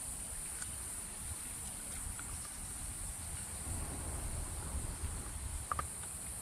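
Steady high-pitched buzz of cicadas in the trees, over a low rumble, with a short chirp near the end.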